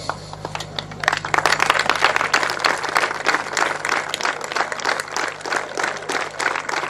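A crowd of cadets applauding in a standing ovation: many hands clapping densely and steadily, starting about a second in.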